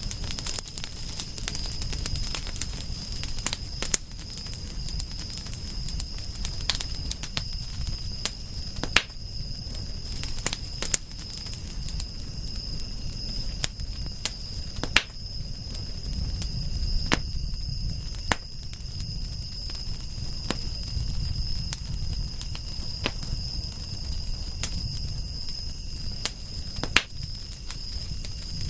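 Campfire crackling, with frequent sharp pops and snaps over a low rumble of the burning wood. A steady, thin, high-pitched tone sits behind it.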